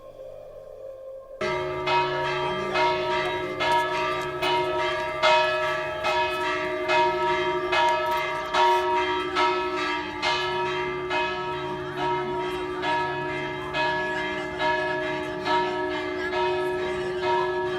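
Church bells pealing, many overlapping ringing tones struck again and again in quick succession, starting suddenly about a second and a half in.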